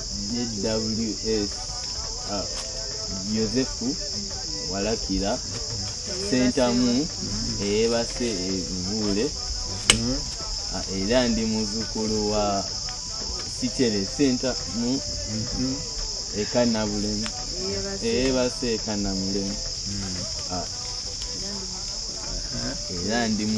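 Steady high-pitched chorus of crickets chirring at night, with one sharp click about ten seconds in.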